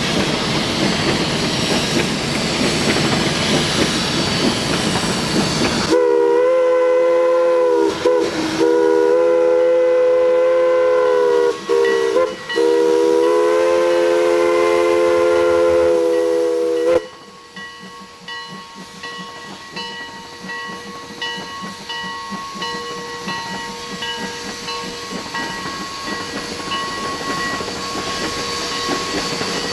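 Heisler geared steam locomotive: a loud hiss of steam, then its steam whistle blowing a long multi-toned blast with a few brief breaks. The whistle cuts off suddenly, giving way to the quieter, rapid exhaust chuffs of the engine working along the track.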